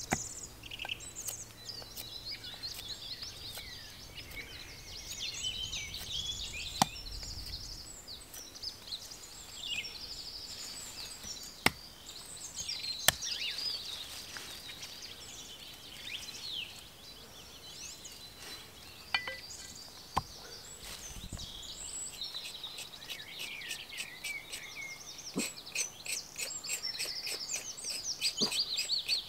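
Songbirds singing continuously, with a few single sharp wooden knocks spread through, and several more knocks in quick succession near the end.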